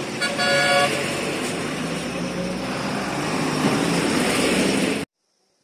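A vehicle horn gives a quick double toot, then heavy army armoured trucks drive past with their engines running. The sound cuts off abruptly about five seconds in.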